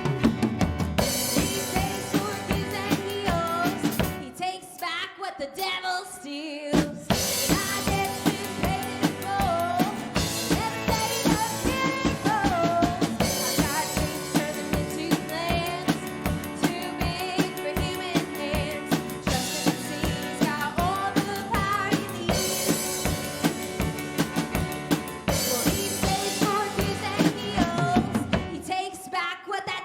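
A live praise band playing a worship song: a drum kit keeping a steady beat with bass drum and snare, with singing over the band. The drums drop out briefly around four to six seconds in, then come back.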